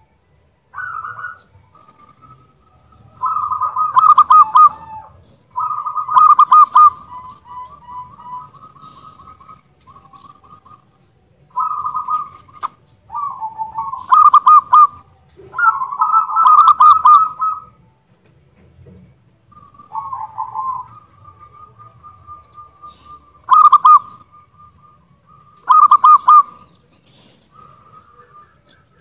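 Zebra dove (perkutut) cooing: a dozen phrases of quick, rolling staccato notes, some of them very loud, with short pauses between.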